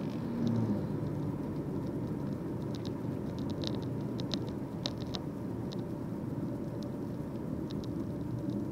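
Steady low road rumble inside a moving car's cabin, with scattered light ticks here and there.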